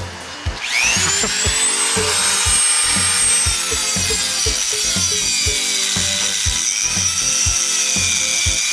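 A handheld power tool's motor spins up with a steeply rising whine about half a second in, then runs steadily with a high whine and a gritty rush, working on metal. Background music with a steady beat plays underneath.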